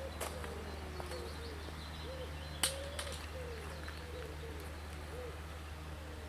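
A pigeon cooing in a series of low, wavering notes over a steady low hum, with a sharp click about two and a half seconds in.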